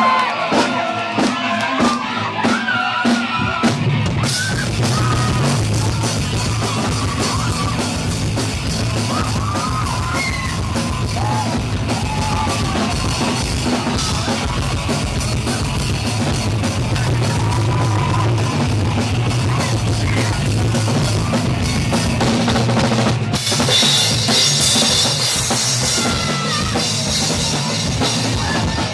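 Live rock band playing loud. The drums start with separate hits, then about four seconds in the full band comes in, with yells over it. The cymbals get louder near the end.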